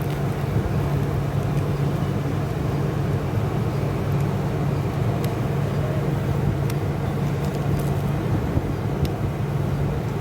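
A steady low drone with a few faint clicks.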